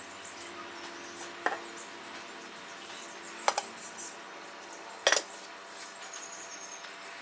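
A few short, light clinks and knocks of cups or utensils while making drip coffee: three hits about two seconds apart, the middle one a quick double.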